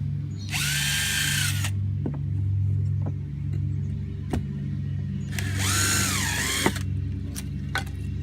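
Power drill run in two short bursts, its motor whine rising, holding and dipping under load, as screws go into the patched wooden battens. A few sharp taps fall between the bursts over a steady low hum.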